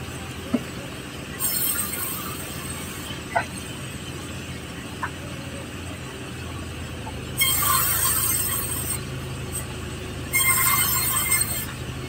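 Sawmill running steadily with a low hum, its saw blade cutting through a hardwood log. Three louder spells of high hiss, about a second or two each, come near the start, past the middle and near the end, with a few short clicks between.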